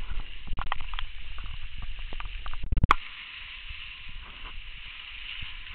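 Skis scraping and hissing over packed, groomed snow, with a few short knocks in the first second and a louder clatter of knocks a little under three seconds in.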